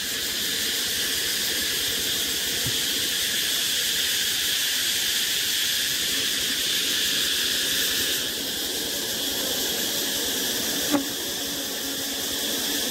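A steady high hiss with no speech, and a faint low drone and a small click about eleven seconds in.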